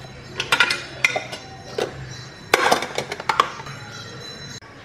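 Stainless steel dishes clinking and clattering as a steel lunch box is packed and shut and a ladle knocks against a small steel cup. There are several quick bursts of metal knocks, the loudest from about two and a half to three and a half seconds in.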